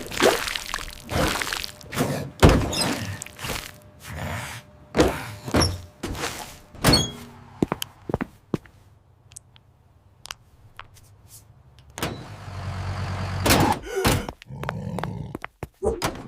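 A rapid series of thumps and knocks, then a quieter stretch, then a steady low hum about twelve seconds in with more knocks around it.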